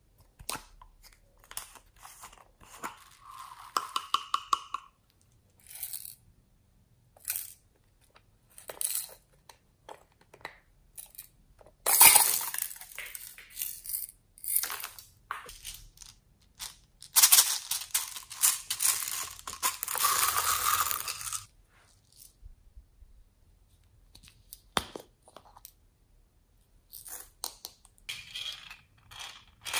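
Small plastic beads and foam balls poured from plastic containers onto clear slime in a plastic bowl: scattered clicks and clinks, with a short pour about twelve seconds in and a longer rattling pour from about seventeen to twenty-one seconds. A short squeak about four seconds in.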